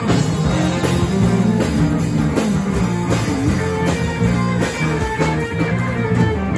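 Live rock band playing, two electric guitars over bass guitar and a drum kit.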